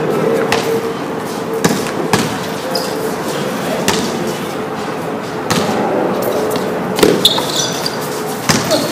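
Basketball bouncing on a hard tiled court during play: irregular single bounces a second or more apart, over a steady hum.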